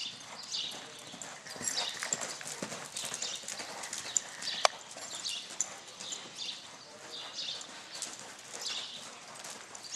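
Hoofbeats of a horse loping on arena dirt, a steady rhythm of strides a little under two a second. One sharp click stands out about halfway through.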